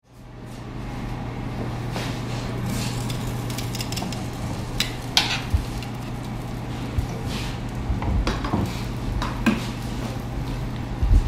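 Kitchen work: scattered clinks and knocks of dishes, pans and utensils over a steady low hum.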